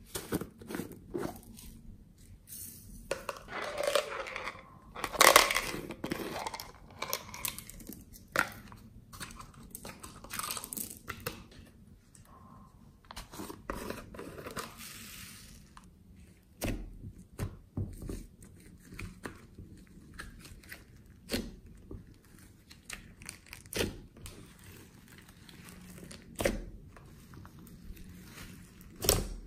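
Slime and plastic slime containers handled by hand as they are opened and emptied into a glass tray: irregular clicks and crackling, busiest in the first half, then scattered single clicks.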